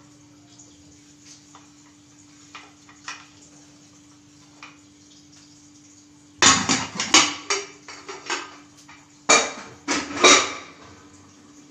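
Steel kitchen vessels and utensils being handled, knocking and rattling in two loud bouts of clatter about six and nine seconds in, after a few faint ticks, over a steady low hum.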